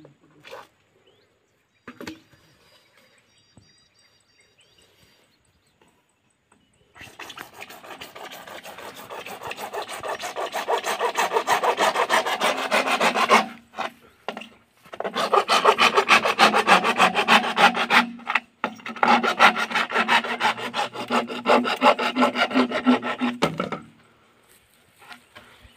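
A length of PVC pipe being sawn through by hand: a fast run of rasping back-and-forth saw strokes that starts after a few quiet seconds, stops briefly twice, and ends near the close.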